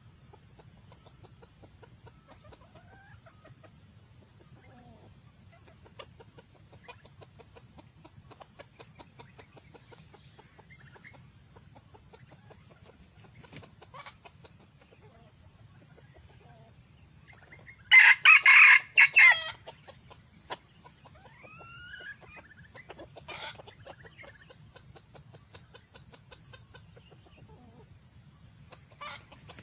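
A junglefowl rooster crows once, short and broken into a few quick pulses, about two-thirds of the way in. A few faint clucks or calls follow. A steady high insect drone runs underneath throughout.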